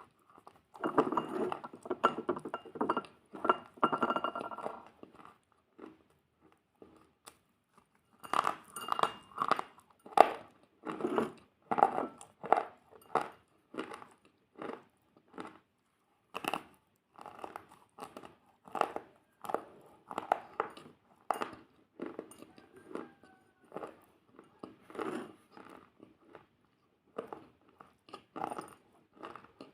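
Close-miked biting and chewing of crunchy food. There is a dense run of loud crunching in the first few seconds, a short pause, then steady crunchy chews about one or two a second.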